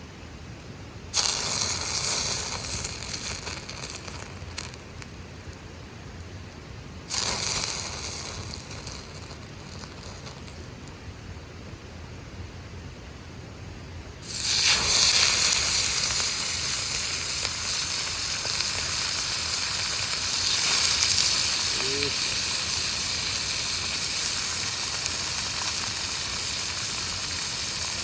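Food frying in hot oil in a pan, sizzling in three sudden bursts, about a second in, at about seven seconds and at about fourteen seconds; the first two die down, the last keeps sizzling steadily.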